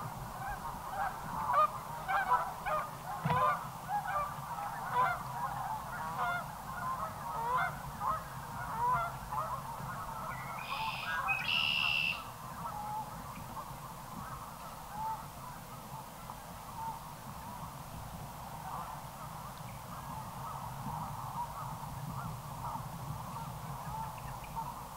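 A flock of geese honking, many overlapping calls, dense at first and thinning out after about halfway. A steady low rumble runs underneath, and two brief higher-pitched sounds come near the middle.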